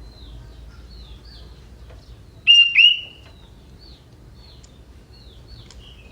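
Sooty-headed bulbul singing: a run of short, high, downward-slurred chirps, broken about two and a half seconds in by two loud, clear whistled notes in quick succession.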